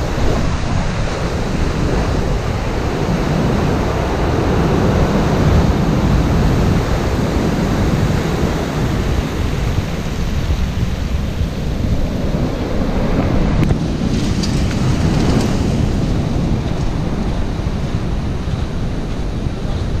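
Heavy storm surf breaking on the shore and washing up over the seafront walkway, a steady dense roar, with wind buffeting the microphone.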